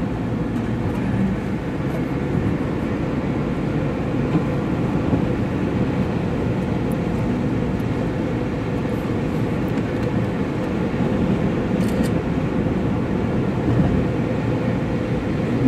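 Steady road and engine noise heard inside a moving car's cabin, an even rumble with no clear changes.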